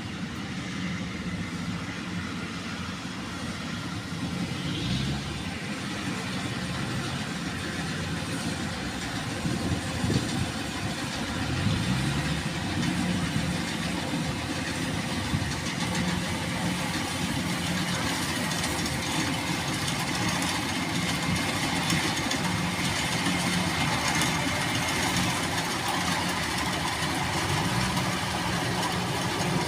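Farm machinery engine running steadily, its pitch rising and falling briefly a few times as the machine works.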